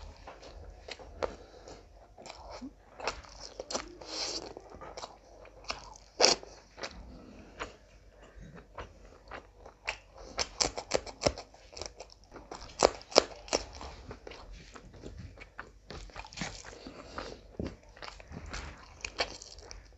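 Close-up chewing and biting sounds of someone eating rice and curry by hand, with crunchy bites and a run of sharp irregular mouth clicks; the loudest click comes about six seconds in, with a dense cluster around ten to thirteen seconds.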